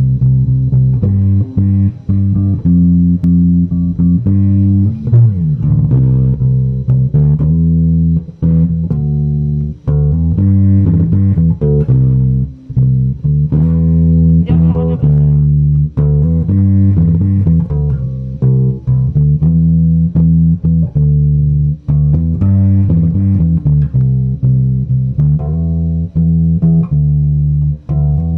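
Electric bass guitar, a StingRay-type bass, played solo through an RJ Soundwave bass amplifier: a steady run of plucked notes, with a slide in pitch about halfway through.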